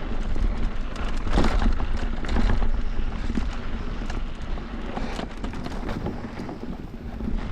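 Wind buffeting the action-camera microphone while riding an electric mountain bike downhill on a dirt trail. Under it come tyre noise and frequent knocks and rattles as the bike runs over rough ground.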